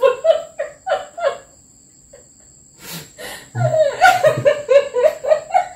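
A man and a woman laughing, in two bouts of quick repeated laughs with a short pause and a breath between them.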